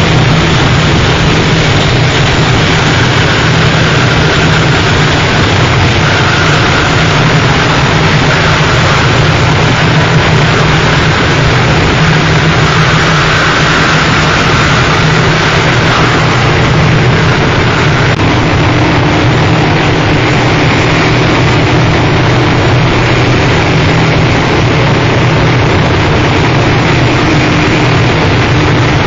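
Harsh noise music: a loud, unbroken wall of distorted noise over a steady low rumble, its texture shifting slightly about two-thirds of the way through.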